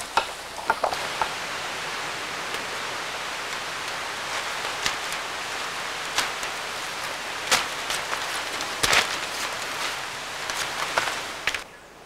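Steady rain falling on rainforest foliage, with scattered louder drop taps; it cuts off suddenly near the end.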